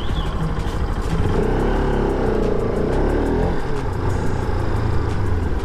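Motorcycle engine running at low speed with road noise. From about a second in to past the middle, a pitched engine sound rises and falls.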